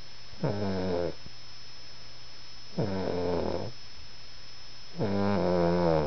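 Snoring: three pitched, rasping snores in a slow, regular breathing rhythm, each under a second long.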